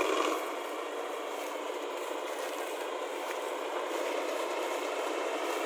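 A harvesting machine running steadily, giving an even mechanical drone and rattle, a little louder right at the start.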